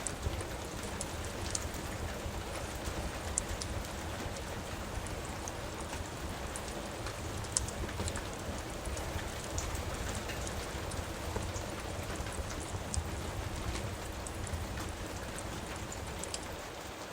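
Steady rain falling, with the scattered sharp crackles of a wood fire burning in a fireplace.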